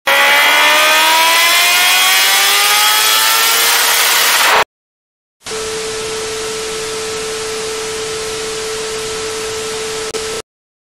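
Intro sound effects: a loud hissing whoosh with several climbing tones rising together for about four and a half seconds, cut off sharply. After a brief gap, TV static hiss with a steady test-pattern beep tone, stopping abruptly.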